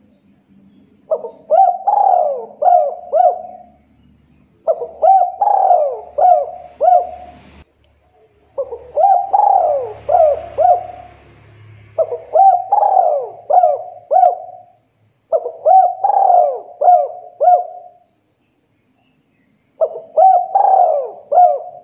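Spotted dove cooing: six repeated phrases, each of four or five notes lasting about two and a half seconds, with short pauses between them.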